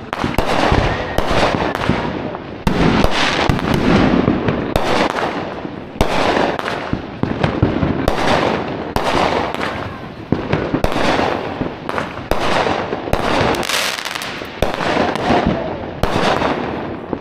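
Consumer aerial fireworks going off in a steady barrage: a sharp bang about every second, each trailing off in crackle and hiss, with the bursts overlapping.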